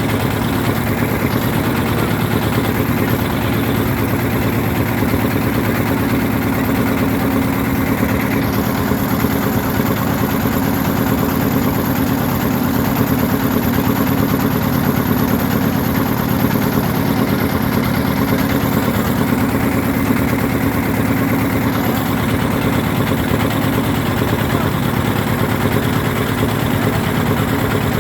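Boat engine running steadily at a constant pace.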